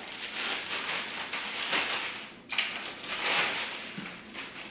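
Packaging rustling and crinkling in uneven swells as a ring light stand is unpacked from its box, with a sharp rustle about two and a half seconds in.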